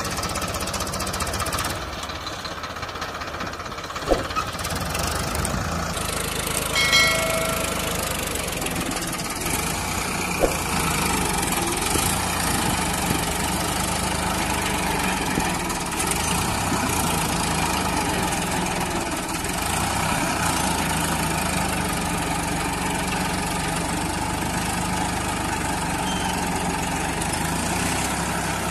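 Farmtrac 60 tractor's diesel engine running steadily, with a few sharp knocks and a short high tone about seven seconds in.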